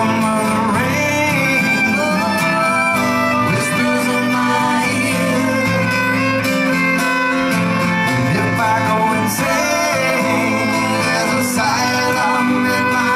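Live acoustic trio music: a strummed acoustic guitar with a bowed fiddle to the fore, playing steadily without a break.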